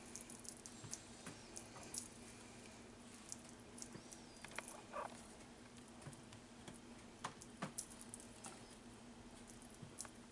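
Faint, scattered light clicks and soft pats of fresh mozzarella cubes being picked off a plate by hand and set down in a lasagna pan, over a faint steady hum.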